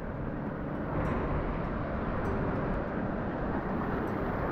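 Steady rushing noise of wind and surf.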